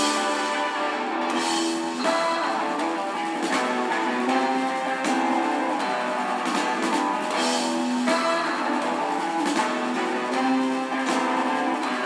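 Live rock band playing an instrumental intro: guitars strumming and picking over a steady beat.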